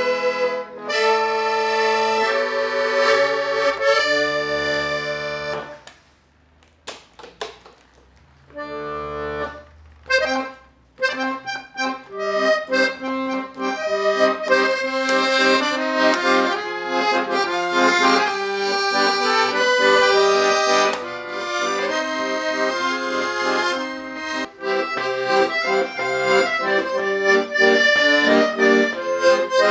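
Accordion playing: held chords at first, then a short, quieter break of a few seconds about six seconds in. After that it plays a busier tune over bass and chords.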